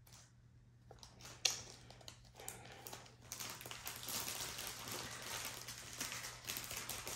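Small plastic zip bags of diamond-painting drills being handled and shuffled, with rustling and crinkling from about two and a half seconds in, after a single sharp click.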